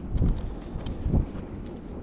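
Two dull, low thumps about a second apart, with a few faint clicks, as the magnet and the metal finds stuck to it, among them a piece of pipe, are handled.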